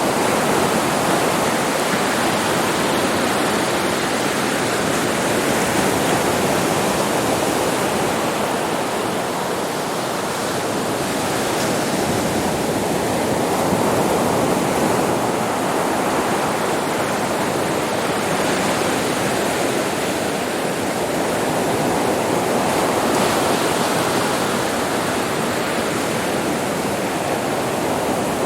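Ocean waves breaking on a beach, a continuous loud wash of surf that swells and eases slowly every several seconds.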